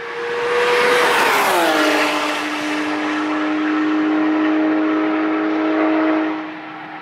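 A car driving past at speed on the race track. Its engine note drops sharply in pitch as it goes by, with a rush of tyre and wind noise. It then holds a steady engine tone while pulling away uphill, fading out a little after six seconds.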